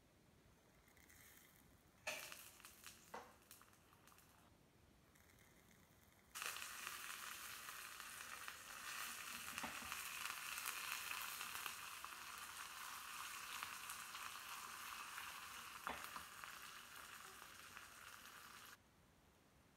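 Tempering in hot oil in a small pan: a few sharp crackles and pops, then about six seconds in a sudden loud sizzle as curry leaves go into the oil, frying steadily until it cuts off abruptly near the end.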